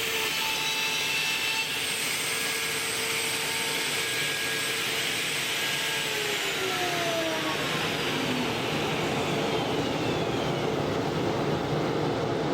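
CNC router spindle whining steadily over a constant rushing noise, then spinning down: about six seconds in its pitch starts falling, and the whine fades out a few seconds later while the rushing noise continues.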